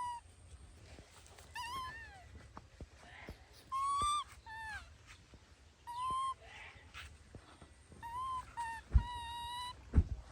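Baby monkey giving repeated short, high-pitched crying calls, about seven of them, each arching up and falling away, with a couple of dull thumps near the end.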